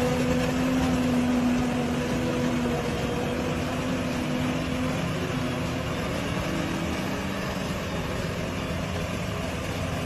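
Self-propelled forage harvester running steadily as it cuts and chops standing corn: a continuous machine drone with a held humming tone, slightly louder in the first few seconds.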